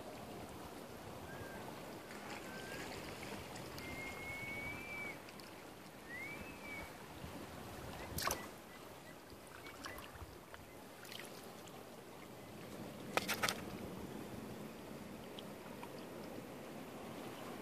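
Shallow water lapping softly at the shore, as a steady low wash. A few faint whistled chirps come in the first seven seconds, and there are sharp clicks or knocks about eight seconds in and again, two or three close together, about thirteen seconds in.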